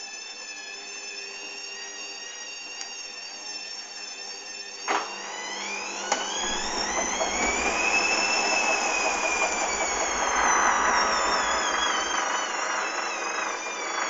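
Hoover Dynamic washing machine's drum motor whining steadily, then a sharp clunk about five seconds in. The motor whine then rises in pitch as the drum speeds up, peaks and falls away again, with rumbling from the drum. This is a spin attempt on a load the owner describes as very unbalanced, with a suds lock.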